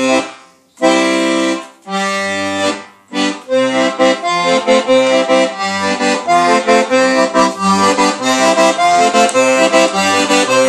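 Button accordion playing: a few long held chords, then, about three seconds in, a tune with a steady accompaniment of low bass notes alternating with chords.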